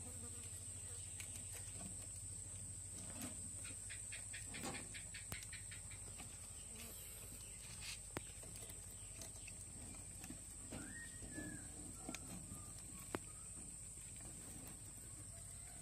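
Faint steady high-pitched drone, like insects, over a low hum, with scattered faint clicks and scratches and one short rising-and-falling chirp about eleven seconds in.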